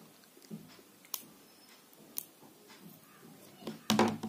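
Sharp clicks and snips of a small wire cutter biting into the hard plastic moulding of a 3.5 mm earphone plug. About five clicks at uneven spacing, with a louder cluster near the end.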